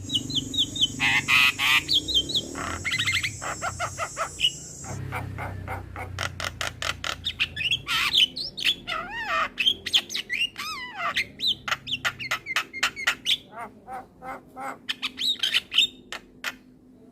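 Male Javan myna calling: a fast run of clicking notes, a harsh rasping squawk over the first few seconds, then whistled notes that slide up and down. The calling stops shortly before the end.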